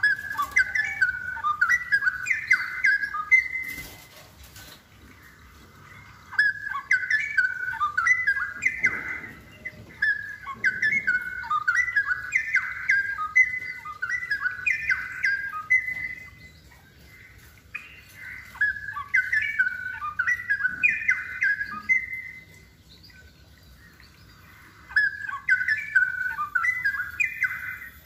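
Straw-headed bulbul (cucak rowo) singing, a run of quick warbled notes that rise and fall in phrases of a few seconds each, with pauses of about two seconds between phrases.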